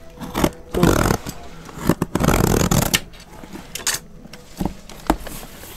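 Plastic packing tape on a cardboard box being slit along the seam with a pen point: a short scraping tear about a second in, a longer rasping tear from about two to three seconds, then a few light taps against the cardboard.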